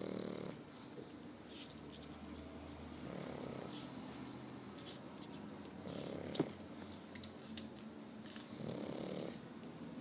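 Female pug snoring in her sleep, a slow breathing snore repeating about every three seconds, with a single sharp click about six seconds in.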